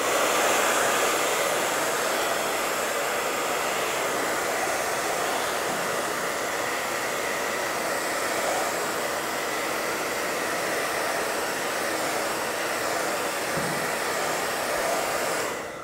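Handheld hair dryer blowing steadily, switched on at the start and cutting off near the end, drying freshly applied paint and varnish on a small wooden craft piece.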